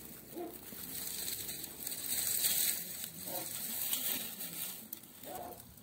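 Dry straw burning in the firebox of a clay oven, crackling and hissing steadily.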